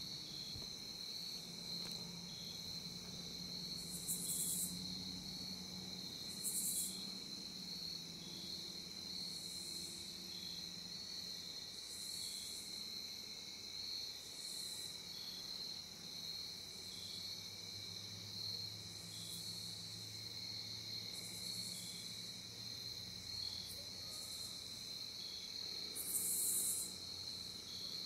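Crickets and other insects chirring at dusk: a steady, pulsing high trill throughout, with a second, higher-pitched buzzing call repeating every two seconds or so.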